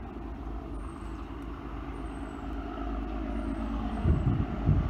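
XPT diesel power car approaching, a low engine and rail rumble slowly growing louder. Two short low thuds near the end.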